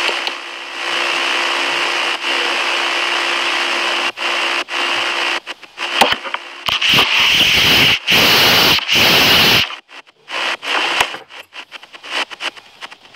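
Loud hissing, crackling noise on a phone microphone with a faint steady hum, cut by brief dropouts. About six seconds in come a few seconds of louder rubbing noise, then scattered clicks and crackles.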